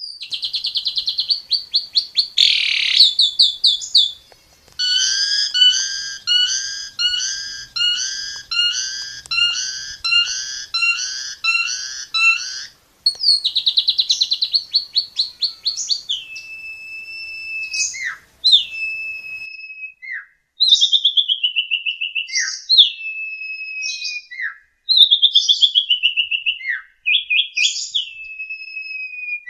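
Starling (jalak) singing: a fast, chattering trill, then a run of evenly repeated chirps, another fast trill, and then a series of whistled phrases that each glide down in pitch, about one every two seconds.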